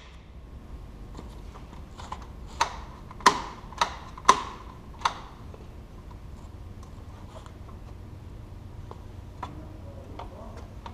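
A run of sharp clicks and knocks, about six over some two and a half seconds, then only a few faint ticks, from the winch's hook and hardware being handled by hand.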